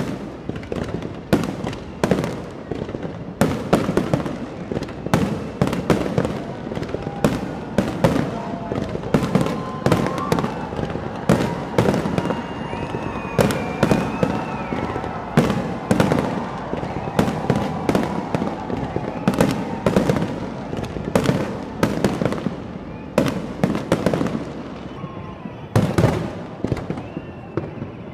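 Fireworks display: a rapid, continuing series of shells bursting with sharp bangs and crackles, several a second at the busiest, thinning out near the end.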